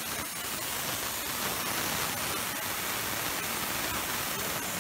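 Tormach PCNC 770 CNC mill running with its 5/16-inch carbide twist drill spinning at 2700 RPM, a steady even hiss as the drill feeds down toward the steel before it begins to cut.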